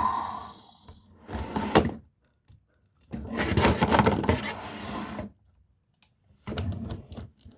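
Plastic toy dinosaur figures handled and knocked together on a tabletop: short clattering knocks, then a longer stretch of rustling and clatter about three seconds in, and a few more knocks near the end.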